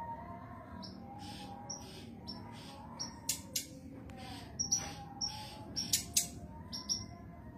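Female brown-chested jungle flycatcher (sikatan rimba dada coklat) giving a rapid series of short, sharp, high calls, several a second, many sliding down in pitch and some starting with a click. These are the calls of a female in breeding condition calling for a male.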